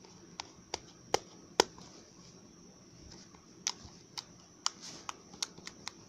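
Hand-played slime being squeezed and stretched, trapped air popping in a series of sharp, irregular clicks, the loudest two about a second in.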